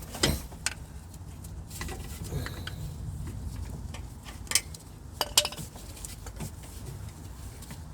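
Metal tools and car parts clinking and knocking during hand work on a car's steering rack: scattered sharp clinks, the loudest just after the start and a cluster around four and a half to five and a half seconds in, over a low steady background rumble.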